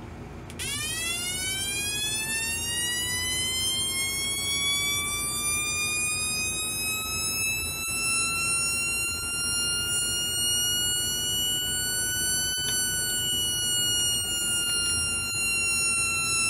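Homemade electronic oscillator siren sounding through a small loudspeaker, its push button held: a buzzy tone starts about half a second in and sweeps slowly upward for about twelve seconds, then after a click slowly falls. A 470 microfarad capacitor, far out of spec, makes the pitch glide this slow, more like a civil defense siren than a police siren.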